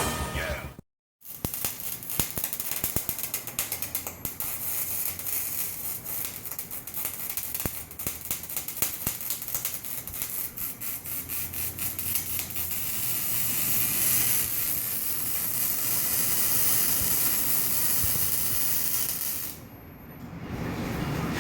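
Mazda RX-8's Renesis rotary engine idling through a straight-pipe exhaust: a choppy, crackling run of rapid irregular pulses that turns steadier and a little louder a little past halfway.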